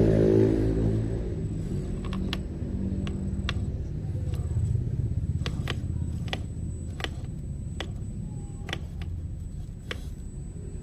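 Background music fading out, then the RGT EX86120 RC rock crawler's electric drivetrain running with a steady low rumble, broken by scattered sharp clicks as it moves over rough ground.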